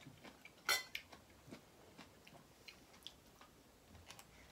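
Spoons and cutlery clinking against plates and bowls during a meal: scattered light clicks, with one louder clink about three-quarters of a second in.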